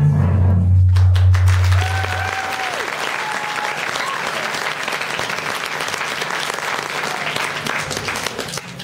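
Audience applauding and cheering with a few whoops, after the music's final low held note ends about two seconds in.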